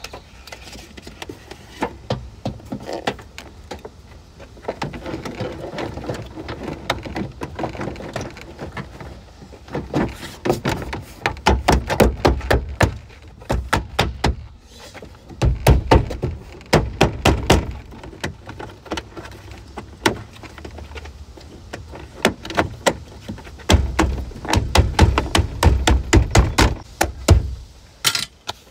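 Plastic interior trim panel of a 2012 Toyota RAV4's rear hatch being refitted: sharp clicks and dull thumps in several bursts as the panel is pressed and knocked onto its retaining clips.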